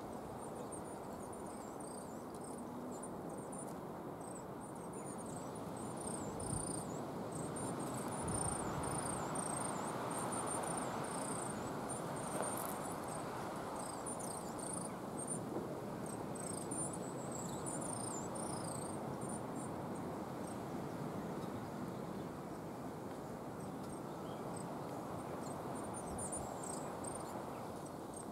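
Coal tit calling: a long, near-continuous run of very high, thin, short notes, which the recordist calls a strange noise, over a steady low background hum.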